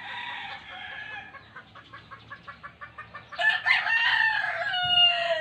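A rooster crowing, then rapid clucking at about six a second, then a louder crow whose pitch falls at the end.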